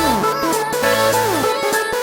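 Electronic background music with held synth notes and falling pitch sweeps.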